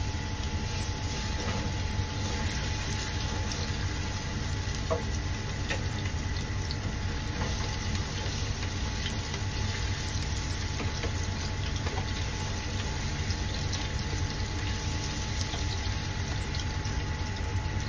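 Minced garlic sizzling in hot oil in a frying pan, a steady hiss over a constant machine-like hum, with a few faint ticks from the silicone spatula stirring it.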